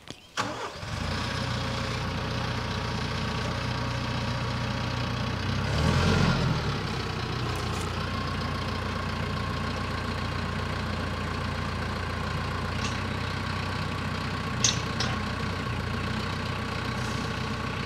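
TYM T474 tractor's diesel engine running steadily, swelling for about a second some six seconds in. A short knock sounds near the end.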